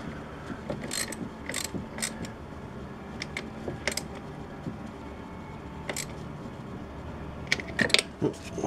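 Hand ratchet wrench clicking in short, irregular runs as the valve cover bolts on a Chevy 5.3 V8 are snugged down, with the loudest run of clicks near the end.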